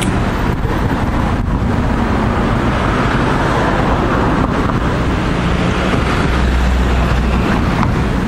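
An inland tanker barge's engine running steadily as the barge moves slowly through the lock, heard as an even mechanical noise with a low hum, mixed with wind on the microphone.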